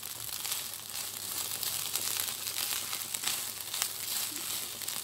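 Fried rice sizzling in a hot pan, a steady hiss with scattered crackles, as a spatula stirs and scrapes through it.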